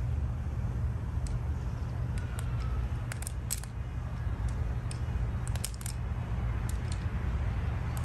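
Wire strippers clicking as they cut and strip the insulation off electrical cord wires: a few small metallic snips in two short clusters over a steady low rumble.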